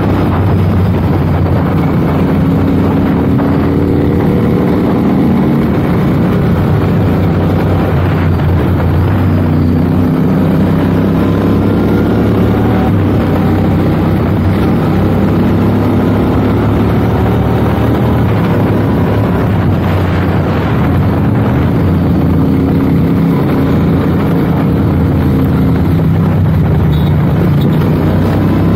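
Royal Enfield 650 parallel-twin engine running under way, heard from the rider's seat over wind rush, its note rising and easing back several times as the throttle and speed change.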